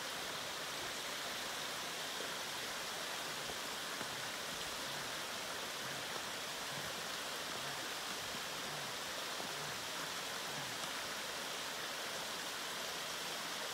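Water pouring over a low concrete spillway: a steady, even rush.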